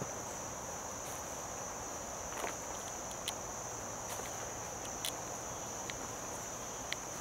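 Steady, high-pitched chorus of insects such as crickets, with a few scattered crackles of footsteps in dry leaf litter.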